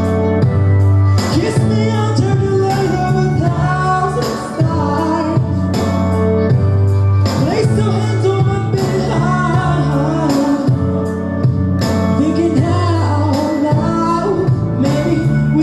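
A young man sings a song live into a handheld microphone over instrumental accompaniment with a steady bass line, amplified through the stage sound system.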